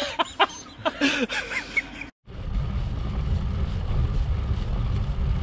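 Voices and laughter. After a cut about two seconds in, a steady low rumble and hiss of wind buffeting a bike-mounted camera's microphone as the road bike rides along.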